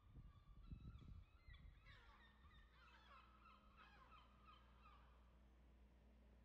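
Faint bird calls: a flurry of short, repeated, pitched cries from about a second and a half in until near the end, over a faint low hum. Low thumps on the microphone come in the first second or so.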